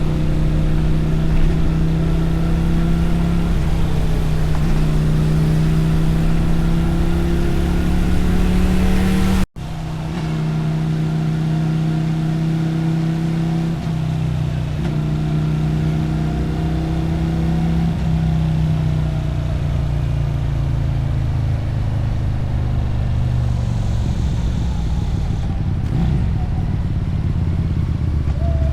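Motorcycle engine and exhaust running under way at a steady speed, with brief dips in pitch now and then. The sound cuts out for an instant about a third of the way in. Later the engine note falls away steadily as the bike slows, then runs on as a lower rumble.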